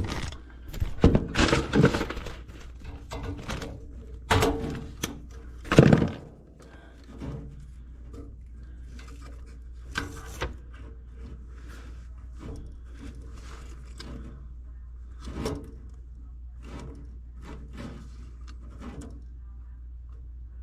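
Handling knocks and clicks as wire terminals are pulled off and pushed onto a furnace control board. The knocks are loudest and most frequent in the first six seconds, then thin out to scattered light clicks.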